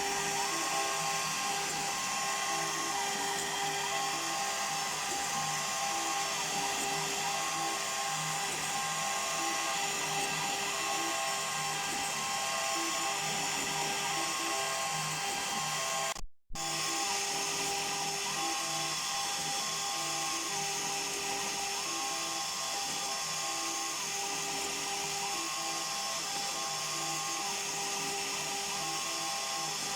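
CNC router spindle running steadily while it mills a beech workpiece, with a whine that repeatedly breaks off and returns as the machine moves. The sound drops out briefly a little past halfway, then carries on the same.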